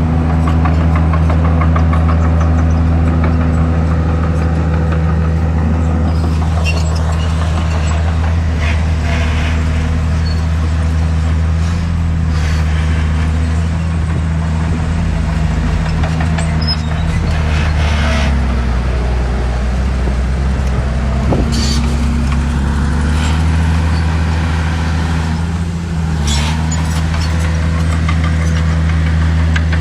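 Heavy diesel engine of a bulldozer running steadily under load, its pitch dipping and recovering a couple of times, with scattered short clanks and scrapes of stone.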